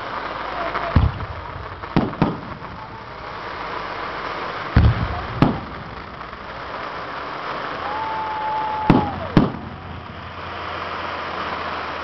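Aerial fireworks shells bursting overhead: about seven sharp booms at irregular intervals, some in quick pairs. A steady high whistle sounds for about a second shortly before the last two booms.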